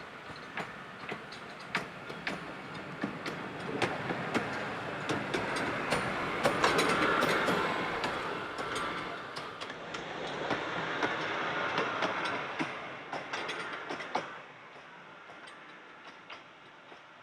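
Small 19-inch gauge passenger train running by: a rushing rumble with many sharp wheel clicks over the rail joints, swelling twice and then falling away suddenly near the end.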